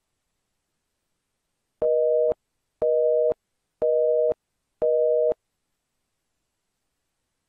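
A telephone busy-signal sound effect: four beeps, each about half a second long and one a second apart, of a steady low two-note tone.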